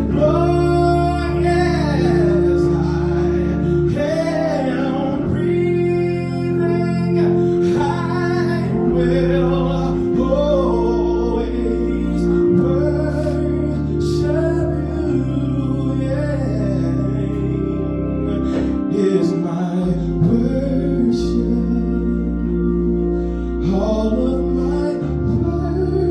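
Gospel song with singing over a sustained instrumental accompaniment with held chords and a bass line.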